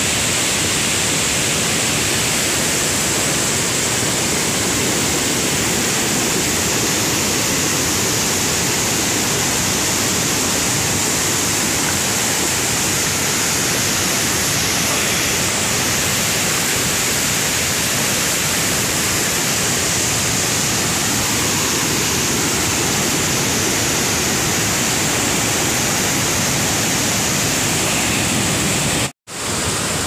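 Steady, loud rushing of a swollen river churning over a weir and rapids. The sound drops out for a moment near the end.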